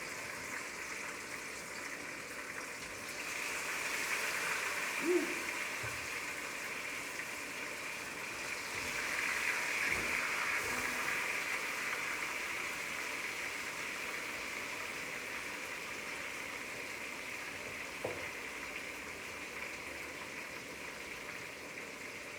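Chicken frying in hot oil: a steady sizzle that swells twice. A couple of faint, short low tones sound over it.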